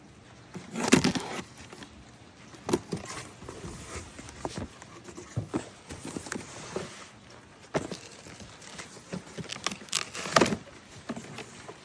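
Packaging being handled during an unboxing: irregular rustling, clicks and light knocks, with louder bursts of rustling about a second in and again near the end.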